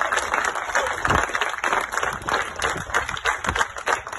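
A small crowd clapping by hand, loud at first and thinning to scattered claps by the end.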